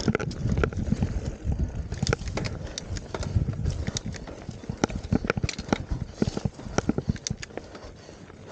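Downhill mountain bike clattering over a rutted trail: quick irregular knocks and rattles from the bike over a low wind rumble, the rumble easing in the second half.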